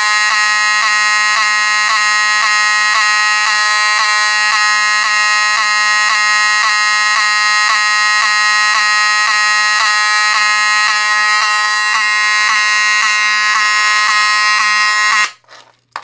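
Spectronics-rebranded Wheelock 7002T 24-volt fire alarm horn sounding continuously after a pull station is activated: a loud, steady buzzing tone with a regular pulse about twice a second. It cuts off suddenly about 15 seconds in, when the pull station is reset.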